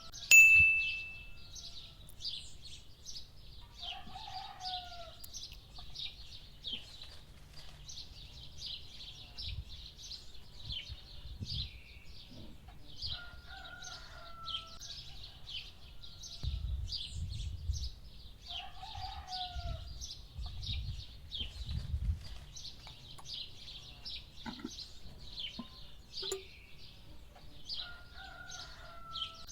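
Small birds chirping steadily, with a lower chicken call about four times, several seconds apart. Some low rumbling in the middle.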